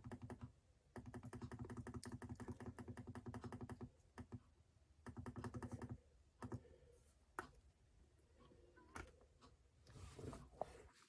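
Faint rapid pulsing tone from a Sangean CL-100 tabletop radio, about eight or nine pulses a second, in three stretches that stop and start, then a handful of separate clicks as its buttons are pressed.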